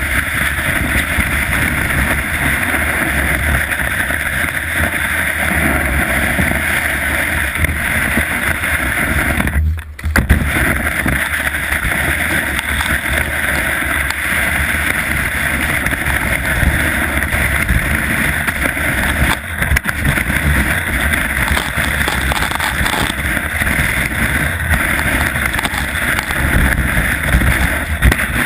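Wind buffeting an action camera's microphone and skis hissing over packed snow during a downhill run, a steady rushing noise that dips for a moment about ten seconds in and again about twenty seconds in.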